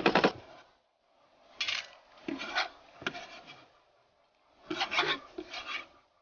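Kitchen knife scraping and knocking on a wooden cutting board in several short bouts, the longest about five seconds in.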